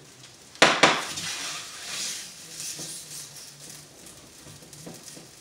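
Metal cookware clanking against a frying pan on the stovetop: two sharp clanks close together, followed by a few seconds of softer rattling and small knocks.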